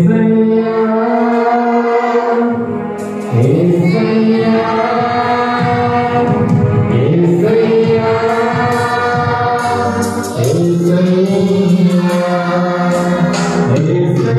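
A worship song sung by voices through a PA, over an electronic keyboard accompaniment, with long held notes.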